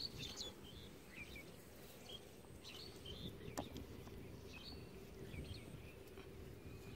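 Faint, scattered bird chirps over a low outdoor background rumble, with one sharp click about halfway through.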